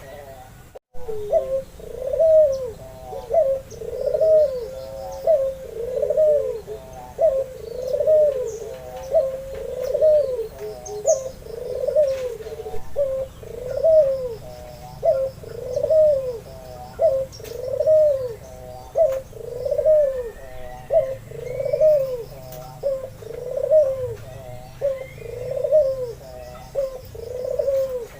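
Albino white ringneck dove (puter) cooing over and over, a steady string of low coos about one a second.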